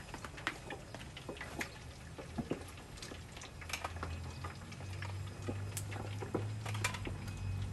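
Food frying in hot oil in a Winco countertop electric deep fryer: a steady sizzle with many scattered crackles and pops. A low hum comes in about four seconds in.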